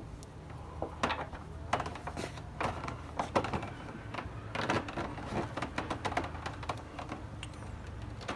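Irregular clicks and light knocks, a few a second, as a plastic front lip is handled and pushed against the bumper while it is worked into place, over a steady low hum.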